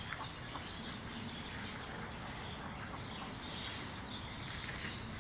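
Small birds chirping in scattered short calls, over a steady low background rumble.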